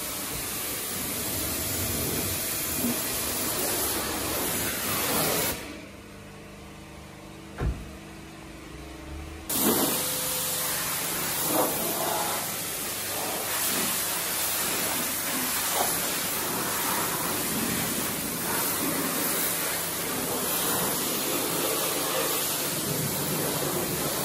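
Pressure-washer lance spraying water onto a car's body and wheel, a steady hiss. The spray stops about a quarter of the way in, with a single knock during the pause, and starts again some four seconds later.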